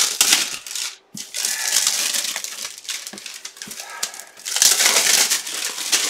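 Clear plastic bag crinkling and rustling as it is pulled out of a cardboard box and handled, in uneven spells with a short break about a second in.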